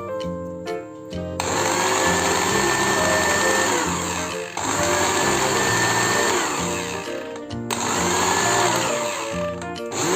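Restored Philips blender motor run in three short bursts of about three seconds each. Each burst has a whine that rises as the motor spins up, holds, then drops as it winds down.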